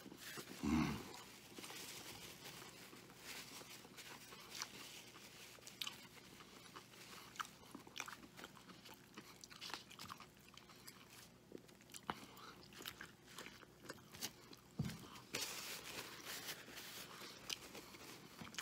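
A man chewing a mouthful of Wendy's Triple Baconator bacon cheeseburger close to the microphone: quiet, irregular wet smacks and small crunchy clicks, with a brief low vocal sound about a second in.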